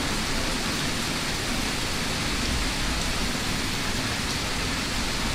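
Steady rushing noise with no distinct events, heaviest in the low rumble.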